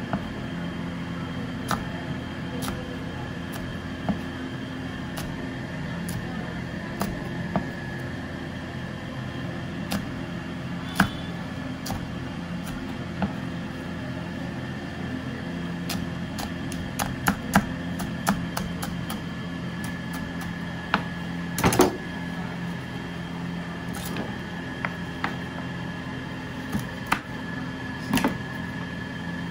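Chef's knife slicing green chillies on a cutting board: irregular sharp knocks of the blade striking the board, a few at a time with pauses between, over a steady mechanical hum.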